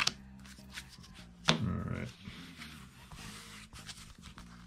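Foil wrapper of an NBA Hoops trading card fat pack being torn open and crinkled by hand, with a sudden loud rip about a second and a half in.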